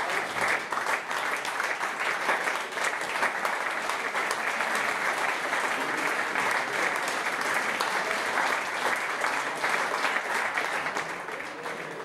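Audience applauding: many hands clapping steadily, easing off a little near the end.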